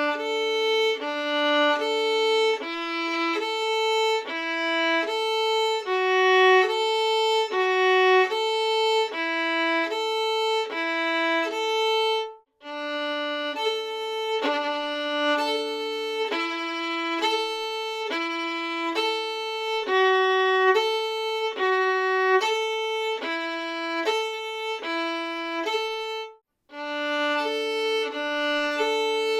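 Solo violin playing a string-crossing passage, the bow moving back and forth between the A and D strings so that the notes alternate between two strings about twice a second. The playing stops briefly twice.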